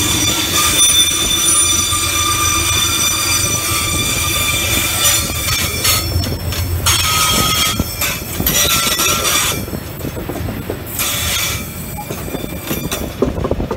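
Freight train of tank wagons rolling past close by: a low rumble of wheels on rail, with several steady high-pitched squealing tones from the wheels. The squeal cuts in and out in the second half, and the sound eases off near the end.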